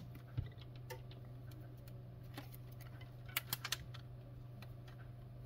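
Hands stretching rubber bands around a phone on a silicone repair mat: scattered light clicks and taps, several in quick succession a little past three seconds in, over a steady low hum.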